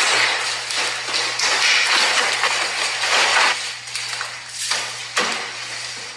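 A short social-media video playing through a phone's speaker: a noisy, hissy mix with repeated taps and thumps of a woman cartwheeling across a hardwood floor.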